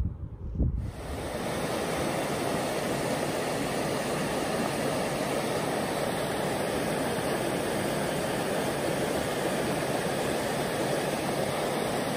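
Steady rushing of flowing river water, cutting in abruptly about a second in.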